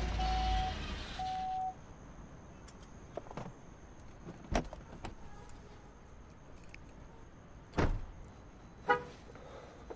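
Two short beeps at the same pitch, then a quiet stretch broken by a few sharp clicks or knocks, the loudest two near the end.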